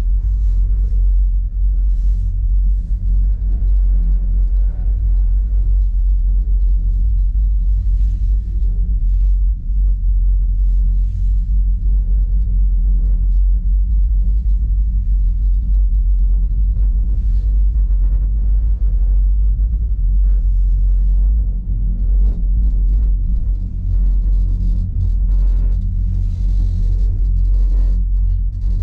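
Steady low rumble of a one-person standing gondola riding down its cable, with faint scattered clicks and creaks.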